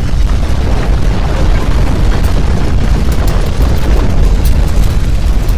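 Deep, loud rumble of strong earthquake shaking, with scattered crackles and rattles through the second half.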